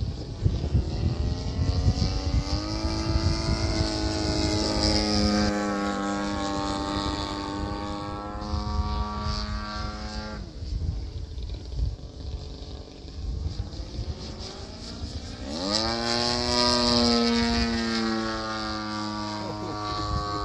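Model aerobatic airplane's motor and propeller, throttled up with a rising pitch about two seconds in, held, then cut off sharply about halfway through. It throttles up again, rising steeply, about three quarters of the way in, and dies away near the end.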